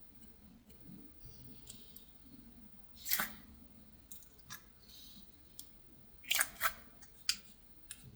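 Clear slime being pressed and worked by hand, giving a few sharp pops and clicks as air bubbles burst. The loudest pop is about three seconds in, with a close pair just past six seconds and a smaller one soon after.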